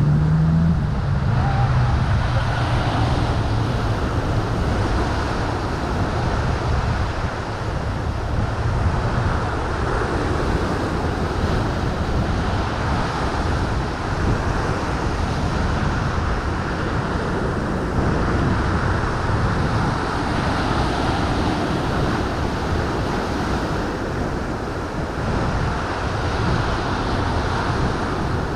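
Ocean surf washing onto rocks, steady and continuous, with wind buffeting the microphone.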